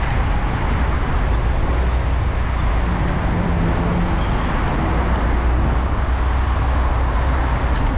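Steady, dense highway traffic: engines and tyre noise from many cars, heaviest in the low end.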